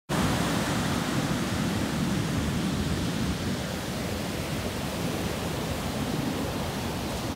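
Rough sea surf breaking on a sandy beach: a loud, steady roar of waves with a hiss over it.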